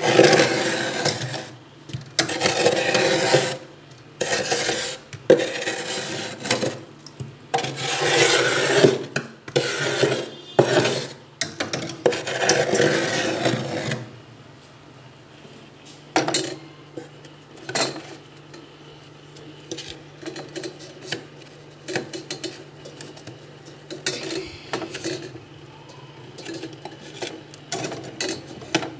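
Metal spoon scraping frost off the inside of a freezer, in repeated rasping strokes. About halfway through the scraping becomes sparse, leaving occasional light scrapes and taps over a steady low hum.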